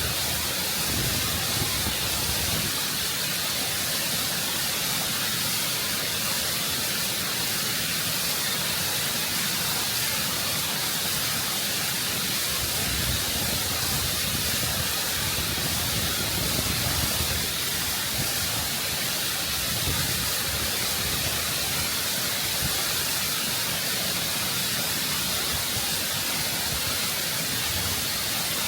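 Waterfall water rushing and cascading over rock in a steady, unbroken roar of noise heard close up.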